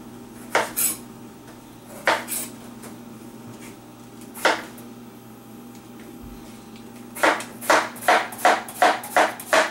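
Kitchen knife slicing through a peeled cantaloupe and striking a wooden cutting board. A few separate strokes come first, then a quick run of about seven chops, roughly three a second, near the end.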